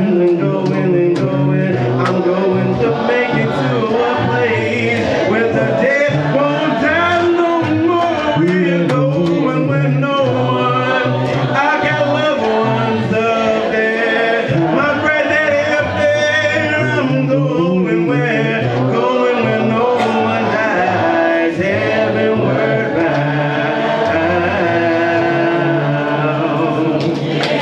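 A man singing a gospel song solo into a microphone over instrumental backing, with sustained low held notes under the melody.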